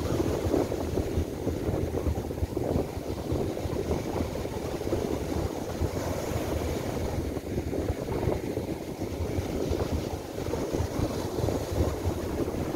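Strong, gusty wind buffeting the microphone as a deep, uneven rumble, over surf breaking and washing up a sand beach. The wind is force-7 gusts from the edge of a typhoon.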